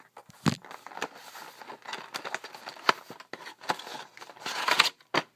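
Product packaging being worked open by hand: irregular crinkling, tearing and clicking, loudest and densest near the end.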